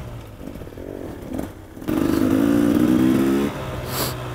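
Enduro motorcycle engine running off-road. For the first couple of seconds it is quieter, then it pulls harder and louder for about a second and a half before easing back.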